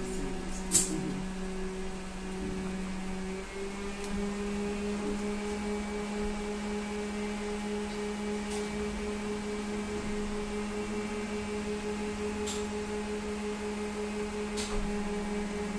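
Inside a SVARZ-MAZ-6275 trolleybus: a steady electric hum from its electrical equipment, two notes held together that step up slightly in pitch about three and a half seconds in. A sharp click comes about a second in, with a few fainter clicks later.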